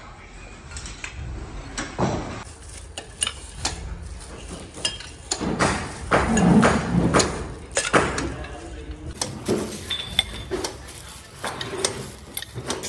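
Irregular metallic clinks and knocks of metal parts being handled and tapped, with a louder cluster of knocks about six to eight seconds in.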